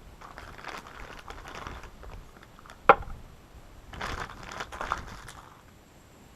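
Rustling and handling noises, with one sharp click about three seconds in and a louder patch of rustling a second later.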